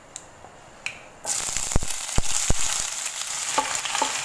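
Hot coconut oil with a few faint pops, then about a second in sliced onions hit the pan and set off a sudden loud sizzle that keeps going, with a few low knocks as they are scraped in with a wooden spatula.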